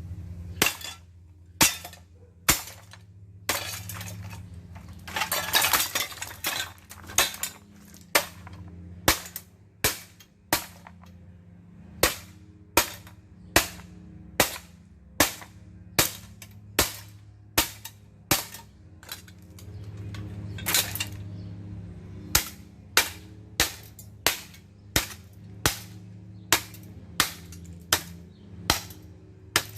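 A ceiling fan's motor hums steadily while sharp clacks strike at a regular rhythm, a little more than one a second. There is a brief louder clattering stretch about five seconds in.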